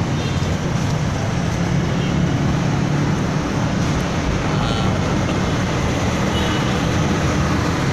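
Steady motor-vehicle engine noise: a low hum under a broad, even rushing sound, unchanging throughout.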